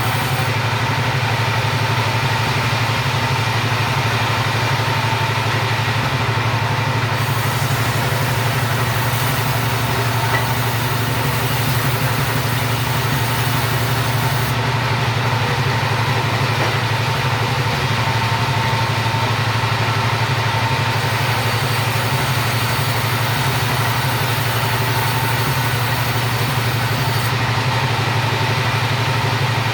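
Two-stroke chainsaw running steadily at an even pitch while sawing wood.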